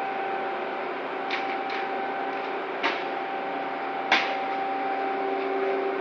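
Steady drone of crane machinery with a humming tone, as a railcar hangs in its lifting frame, broken by a few sharp metallic clanks, the loudest about four seconds in.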